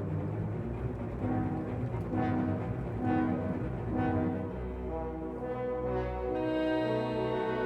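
Orchestral background music with brass: a phrase of separate held notes, then about halfway through a long sustained chord over a deep bass note.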